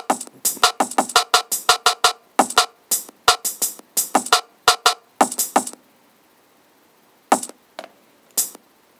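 Sampled drum hits from a Max/MSP probability drum sequencer, slices of one sample file retriggered at a quick steady pulse. About six seconds in the hits thin out into silence with only a few scattered strikes, as the pattern morphs toward a sparser preset that fills it up with more silence.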